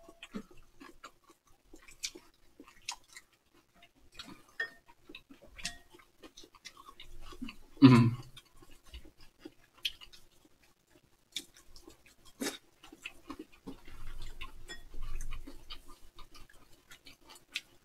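Two people eating roasted whole Job's tears grains from bowls: chewing, with scattered light clicks of spoons against the bowls and a couple of louder knocks, about eight and twelve and a half seconds in.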